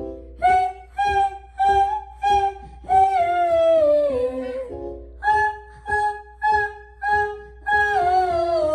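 Vocal warm-up exercise sung in a high voice: a run of short, detached notes at one pitch and then a long note sliding downward, done twice. Short keyboard chords between the runs set the next pitch.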